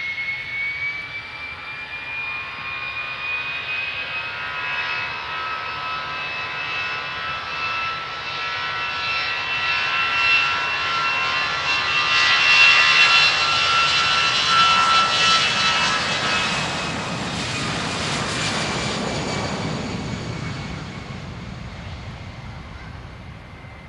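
Germanwings twin-jet airliner taking off: a high engine whine rising a little in pitch as it spools up and rolls. It grows loudest about halfway through, then turns into a deeper rumble that fades as the jet lifts off and climbs away.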